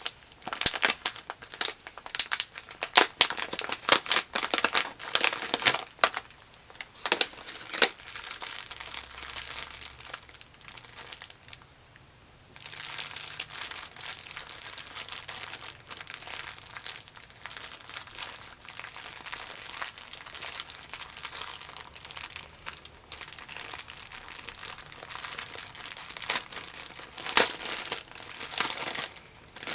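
Crinkling and rustling of packaging as a small bag of doll clothing is opened and handled. There are sharp crackles at first, a brief lull, then steadier rustling.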